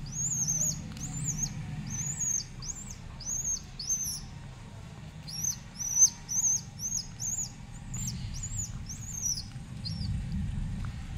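Baby bird giving high, repeated begging chirps, two or three a second in short runs, while it is hand-fed with a stick.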